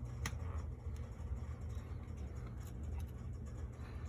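A low, steady hum with a few faint clicks, one about a quarter second in and another around three seconds in.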